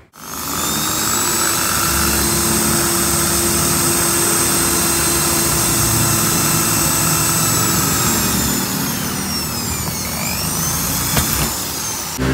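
Electric hand drill running steadily, its bit boring into a Yale double-track lock cylinder to drill out the pins. The motor's whine sinks in pitch about eight seconds in and then climbs back up.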